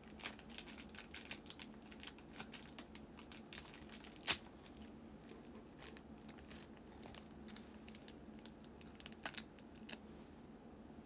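Clear plastic bag crinkling and crackling as it is handled, with one sharp click about four seconds in and a few more crackles near the end; quiet overall.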